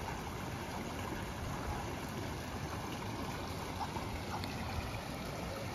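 Shallow stream running over rocks, a steady rush of water.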